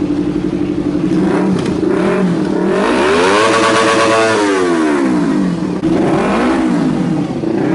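Yamaha YZF-R25's 249 cc parallel-twin engine idling, then revved: two short blips, one long rev held at the top for about a second before dropping back to idle, and another blip near the end.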